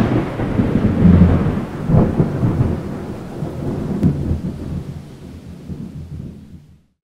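Thunder rumbling, with sharper cracks about two and four seconds in, dying away near the end.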